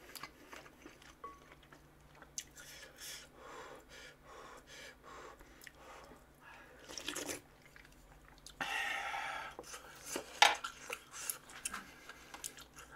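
Close-miked chewing of meat, with soft wet mouth clicks and crackles scattered throughout. There is a louder rushing sound about nine seconds in and a sharp click just after ten seconds.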